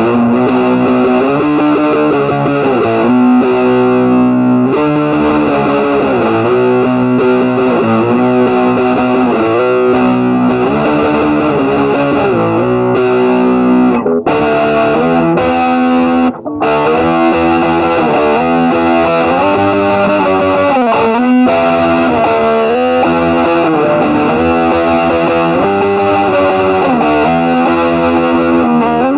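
Intro music: distorted electric guitar playing sustained notes and chords.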